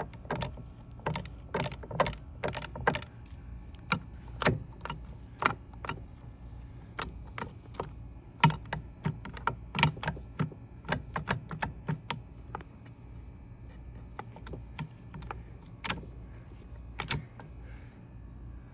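Metal transmission parts clinking and tapping as they are handled and turned over: a string of irregular sharp clicks that thins out near the end, over a low steady hum.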